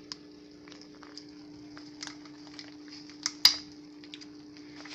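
Rustling and light clicks of a cheese package being handled and opened, with one sharp knock about three and a half seconds in, over a steady low hum.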